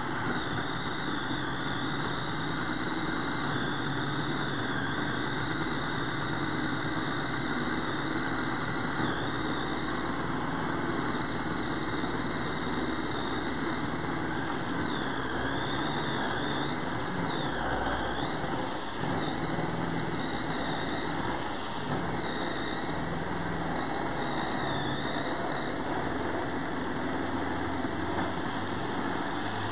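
Pampered Chef Flex Plus cordless power stick running at top speed on its food processor attachment, the coarse grating blade shredding a block of cheese fed down the chute. A steady motor whine that wavers in pitch through the middle as the cheese loads the blade.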